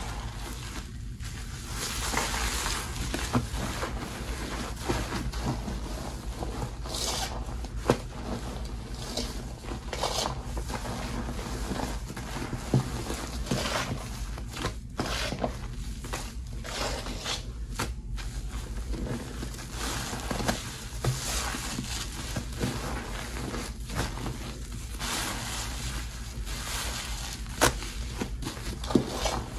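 Hands squeezing and kneading a thick foamy paste of Ajax cleanser, Tide powder and boiled bar soap in a metal bowl, working a sponge through it: wet squishing with a continuous crackle of foam and many irregular small pops.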